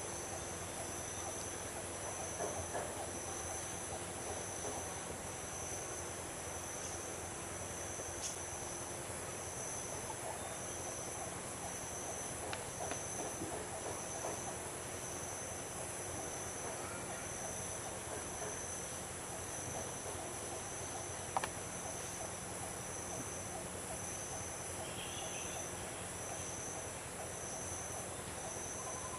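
Forest insects calling: a steady high-pitched chorus of several layered drones, one pulsing about once a second. A single sharp click about two-thirds of the way in.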